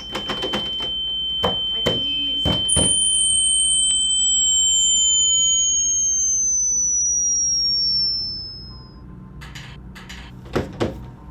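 Electronic tones: a steady high beep-like tone holds for about six and a half seconds, and a few seconds in a second, higher tone joins it and glides slowly down in pitch. Underneath is a low hum, with a few sharp clicks at the start and again near the end.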